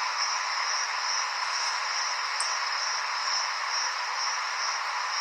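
Steady high-pitched hiss with a thin, even high ringing band running through it.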